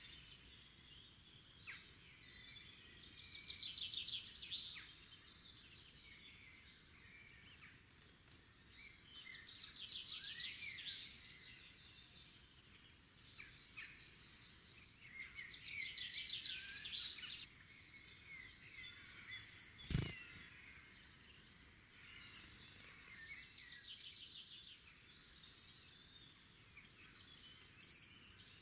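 Songbirds singing, with trilled phrases repeating every few seconds over a faint steady outdoor hiss. A single sharp click about twenty seconds in.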